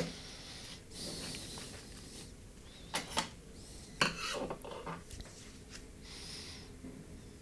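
Soldering iron and solder wick worked over the chip pads of an iPhone 13 logic board, with faint scraping and hiss and two sharp small metal clicks about three and four seconds in.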